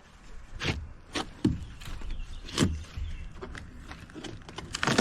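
Loose stainless chain plate rattling as it is worked free from the boat, a handful of irregular metallic knocks a second or so apart.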